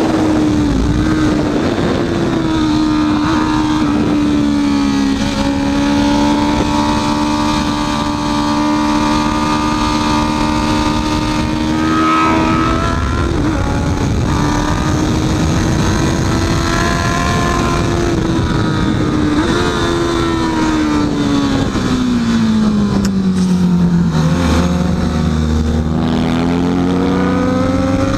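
Honda CB650F inline-four engine running hard at high revs on track. Its note holds fairly steady with small rises and falls, drops steeply about three-quarters of the way through, then climbs again near the end, over a constant rush of noise.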